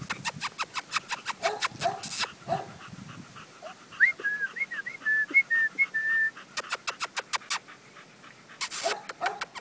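Five-week-old American pit bull terrier puppies giving a few short whimpers and yips near the start and again near the end, over many quick light clicks. About four seconds in there is a run of short high chirps lasting about two seconds.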